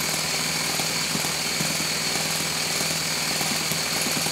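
Electric starter motor cranking a model four-stroke glow engine over, a steady high whine with the engine's rapid chuffing beneath it. This is a starting attempt: the engine is drawing fuel but is not yet running on its own.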